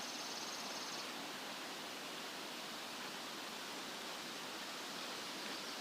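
Steady outdoor background hiss, with a high, fast insect trill that stops about a second in.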